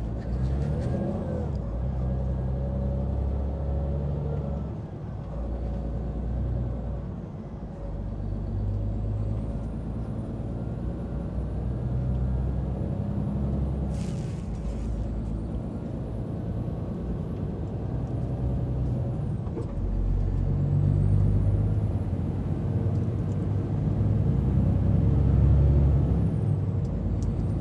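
Diesel engine of a loaded timber truck running on the road, its note shifting as it pulls, with a short burst of noise about halfway through.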